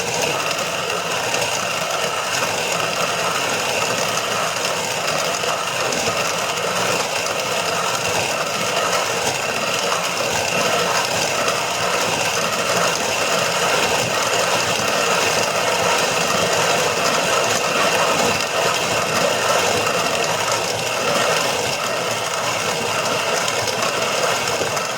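Grain mill grinding kamut grains into flour: a steady, unbroken mechanical grinding rattle.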